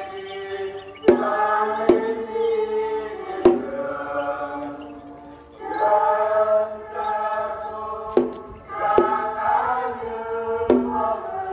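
A choir singing a slow hymn in long held notes, phrase by phrase. About six sharp knocks fall mostly at the starts of phrases.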